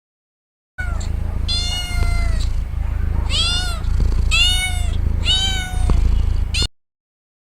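Domestic cat meowing, about four drawn-out meows less than a second apart, over a steady low rumble; the sound starts abruptly about a second in and cuts off suddenly near the end.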